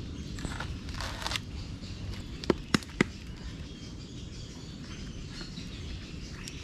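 Three sharp knocks about a quarter second apart, a knife blade striking a coconut husk, over a low steady outdoor rumble.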